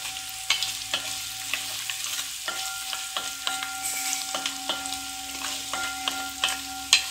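Small coconut pieces sizzling as they roast in ghee in a metal uruli, browning. A spoon stirs and scrapes them around the pan with frequent clicks and taps against the metal, over a steady tone.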